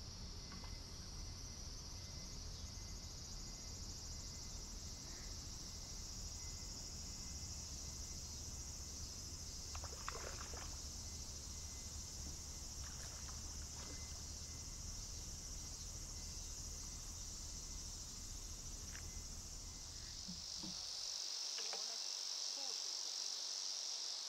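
Steady, high-pitched shrilling of summer insects, with a low rumble underneath that stops abruptly about 21 seconds in; after that the insect chorus is louder.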